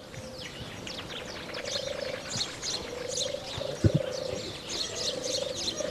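Outdoor ambience of small birds chirping, with a low trilling call repeating about every second. A single sharp knock comes just under four seconds in.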